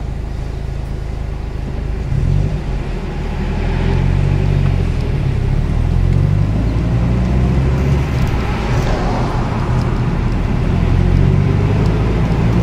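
Subaru Impreza WRX STI's turbocharged boxer engine heard from inside the cabin, idling steadily at first. About two seconds in it gets louder as the car pulls away, and it runs under load as the car drives on.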